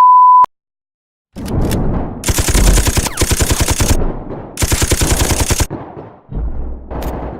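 A steady beep tone cuts off about half a second in. After a short silence comes rapid automatic gunfire: two dense bursts of fast shots, each about a second long, with quieter firing between.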